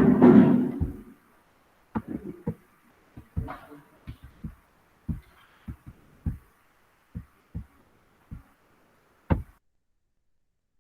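A short loud rustle in the first second, then about a dozen irregular knocks and taps spread over several seconds. The sound then cuts off to dead silence.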